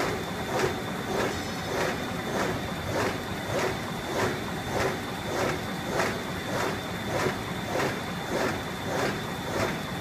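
GUR-iS PSR-900 polyethylene bag-making machine running, its cycle making a regular mechanical clatter about once every 0.6 seconds, over a steady high-pitched whine.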